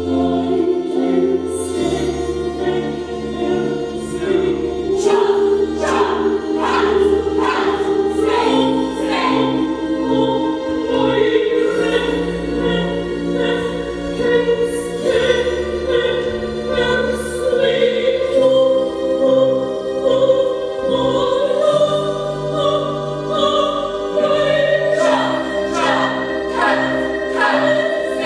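Music with voices singing in a choral, operatic style over slowly changing sustained bass notes.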